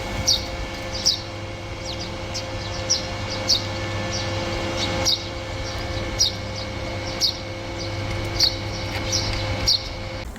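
A small bird chirping, about ten short, sharp, falling chirps at irregular gaps of roughly a second, over a steady low mechanical hum.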